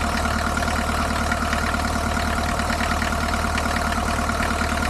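Mercedes-Benz 207D's OM616 four-cylinder diesel idling steadily with an even rhythmic clatter, running just after starting on a fresh set of glow plugs.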